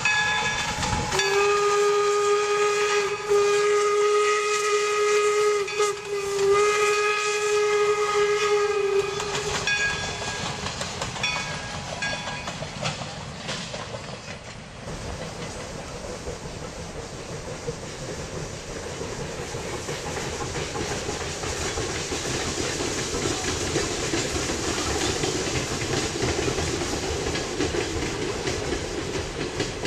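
The steam whistle of 4-4-0 locomotive No. 17 blows three long blasts on a single steady note. After that the passing train keeps up a steady running noise.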